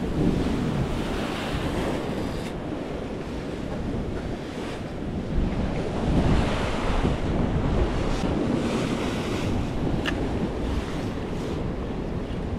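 Sea waves surging and breaking against a rocky shoreline, swelling and ebbing every few seconds, with wind buffeting the microphone.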